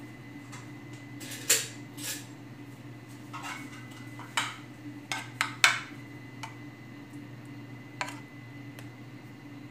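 Spoon and dishes clinking and knocking in scattered single strikes while sauce is scooped out, with a quick run of louder clinks about four to six seconds in.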